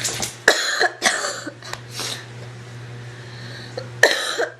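A woman coughing in a short fit, several harsh coughs in the first two seconds and one more near the end. The coughing comes from a lingering illness that has left her throat sore.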